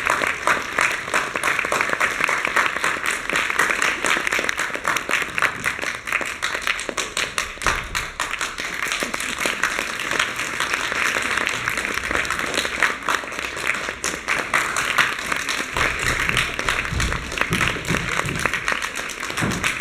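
Audience applauding: a long, steady round of dense clapping.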